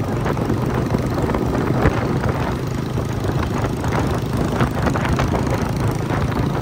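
Single-cylinder motorcycle engines running steadily while the bikes ride along at an even pace.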